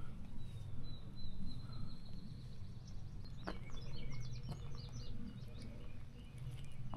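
Outdoor ambience with birds singing: a thin high note held for about two seconds, then a quick run of short chirps about halfway through, over a steady low rumble and one sharp click.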